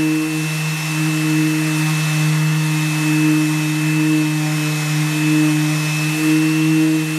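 DeWalt random orbital sander with 40-grit paper running on a mahogany plywood deck, sanding off old paint and primer, together with the shop vac drawing its dust. A loud, steady motor hum with a thin high whine over a hiss of abrasion.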